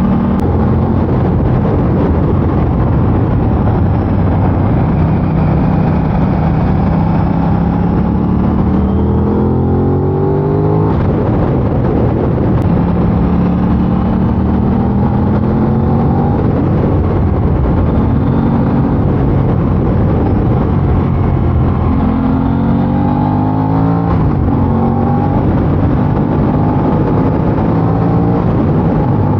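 Aprilia RS660's parallel-twin engine with its stock exhaust, revving up and shifting through the gears under acceleration, the pitch climbing and dropping back several times.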